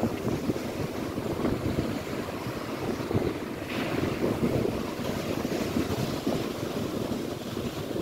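Wind buffeting the microphone in a steady, gusting rumble over Lake Erie waves breaking on the shore, with a brief louder wash of surf a little before the middle.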